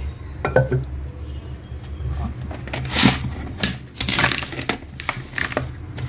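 Plastic jars and plastic bags being handled on a storage shelf: scattered knocks and clinks with short bursts of rustling.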